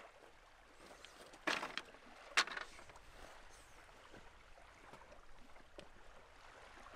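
Armful of dry driftwood sticks thrown down onto a pile on sand: two short clattering knocks about a second apart, the second louder, over a faint steady hiss of wind and surf.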